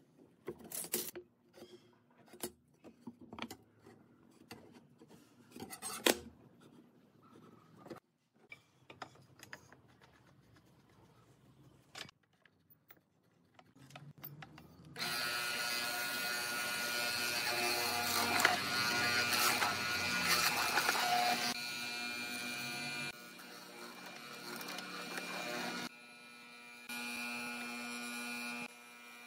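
Scattered taps and knocks of wood being handled, then about halfway in a benchtop hollow-chisel mortiser's electric motor starts and runs with a steady buzzing hum while its square chisel bores into the wood, loudest for several seconds and then quieter and uneven as the board is shifted in the vise.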